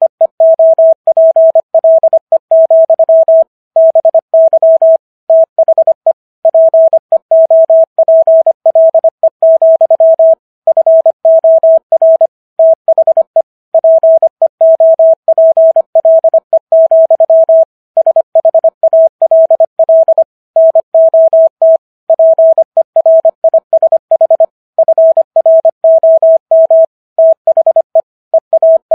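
Morse code sent at 25 words per minute as a single steady tone keyed on and off in rapid dots and dashes, with short pauses between letters and longer ones between words.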